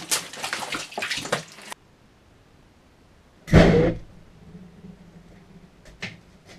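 Petrol vapour igniting inside a tubeless tyre with one loud, deep bang lasting about half a second, some three and a half seconds in: the explosion used to seat the tyre's bead on the rim. Before it, rough splashing and crackling from petrol being poured from a plastic bottle around the tyre, stopping abruptly.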